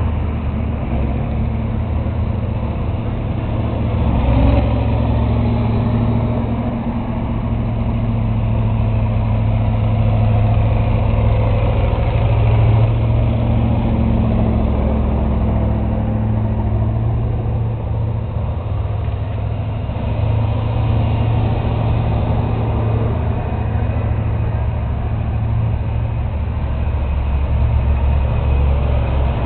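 Farm tractor engines running steadily with a low, even engine note.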